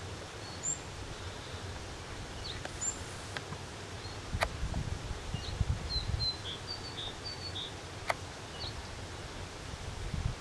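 Small birds giving short, scattered chirps over a low rumble of outdoor noise, with two sharp clicks about four and eight seconds in.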